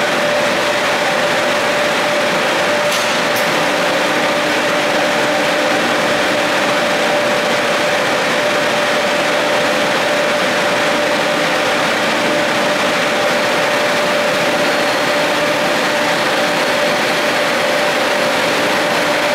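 Funicular drive machinery running: the BBC electric motor, gearbox and large cable bullwheel giving a steady, loud mechanical drone with a constant whine through it. A faint click comes about three seconds in.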